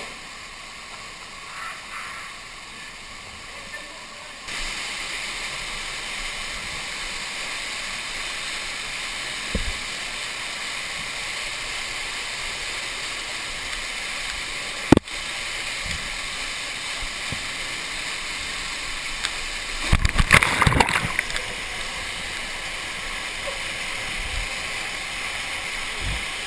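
Waterfall water rushing close to the microphone, getting louder about four seconds in. There is a single sharp knock about fifteen seconds in, and a louder rough burst of splashing around twenty seconds.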